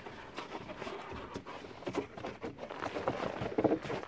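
Cardboard eave baffle being folded and pushed down into the eave by hand against loose cellulose insulation: irregular scraping, rustling and light taps.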